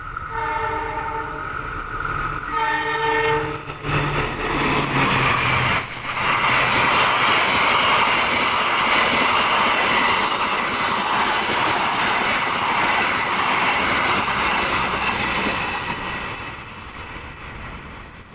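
Indonesian CC 206 diesel-electric locomotive sounds its horn in two blasts, then the train passes close at speed with a loud, steady rumble and clatter of wheels and carriages that eases near the end.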